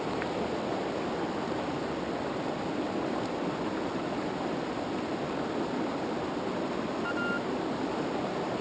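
Steady rush of river rapids, an unbroken even wash of water. A short high tone sounds once, about seven seconds in.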